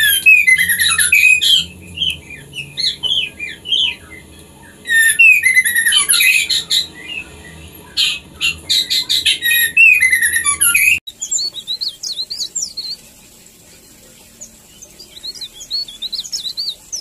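White-rumped shama chirps and calls, dense and rapid in several bursts, played as a female's breeding call to stir caged shamas to mate. The recording cuts off suddenly about eleven seconds in, giving way to a different small bird's thinner, higher chirps in two short runs.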